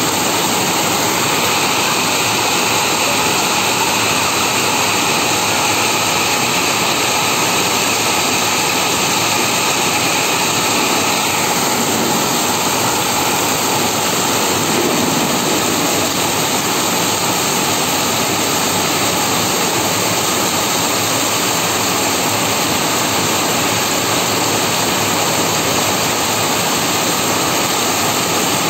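Heavy rain pouring steadily onto a concrete yard, a dense, even hiss of countless drops.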